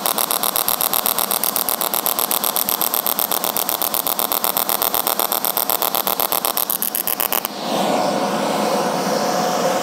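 TIG welding arc on aluminium from an HTP Independence 210 AC/DC in AC-DC mix mode (40% DC): a rhythmic pulsing buzz, bursts of AC cycles broken by short quieter moments while the DC part of the cycle runs. About seven and a half seconds in, the pulsing stops and a steadier hiss follows.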